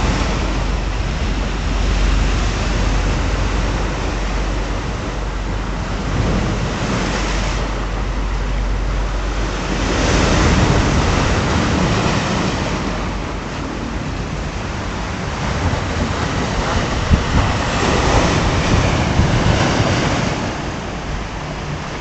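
Rough sea surf breaking and washing over shoreline boulders, swelling and easing as each set of waves comes in, louder about halfway through and again near the end. Wind rumbles on the microphone, most strongly in the first half.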